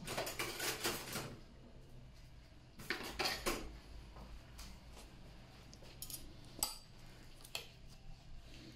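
Metal surgical instruments clinking and clattering against each other or a metal tray: a burst of quick clinks at the start, another about three seconds in, then a few single clinks.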